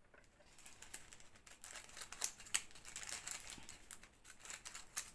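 Small plastic bag of diamond-painting drills crinkling as it is handled and opened. There is a dense run of small irregular crackles and clicks that starts about half a second in.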